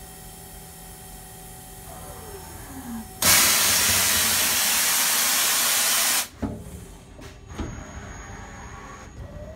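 Super Kia Turn SKT-21V CNC lathe working through its cycle: the spindle whine falls as it slows, then a loud, even hiss of compressed air blows for about three seconds and stops abruptly. A few sharp clicks and knocks follow, and a rising whine starts near the end as the spindle speeds up again.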